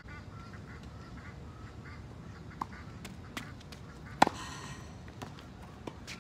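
Tennis ball struck hard by a racket close by: one sharp pock with a short ring about four seconds in, the loudest sound, after fainter distant hits and bounces. A few short, quack-like squeaks sound in the first second or two.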